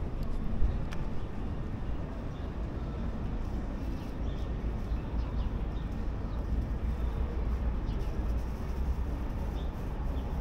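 Steady low rumble of distant city traffic, with a brief knock about half a second in and a few faint high chirps.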